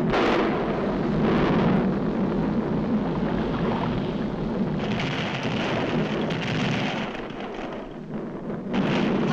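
Sound effect of an erupting volcano: a continuous rumbling noise that eases off briefly about eight seconds in, then swells again.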